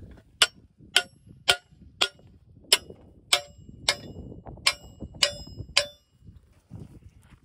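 A hammer tapping the metal wedges of a fence stretcher bar down onto high tensile woven wire, about ten ringing metal-on-metal strikes, roughly two a second, stopping about six seconds in. The wedges are only being started, lightly set so each one holds a wire, not driven home.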